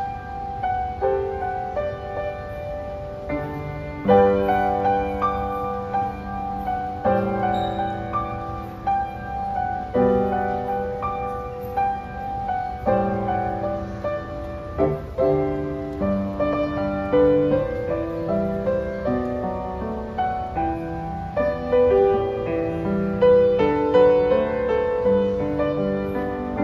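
Solo piano music: a slow piece with chords struck every few seconds and the notes left ringing between them.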